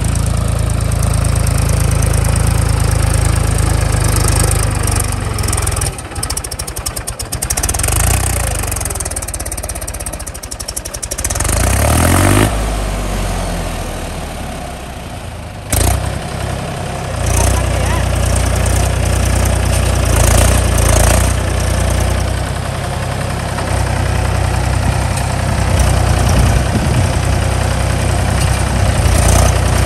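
Mahindra 275 DI tractor's three-cylinder diesel engine labouring and revving as it tries to pull a loaded trolley out of deep mud, its rear tyres spinning: the tractor is stuck. The engine eases off through a quieter spell in the middle, then revs up again about 12 seconds in and once more near 16 seconds.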